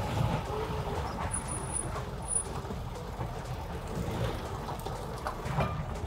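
Old Lada sedan driving slowly on wet pavement: a steady low engine rumble with tyre noise, and a few light knocks near the end.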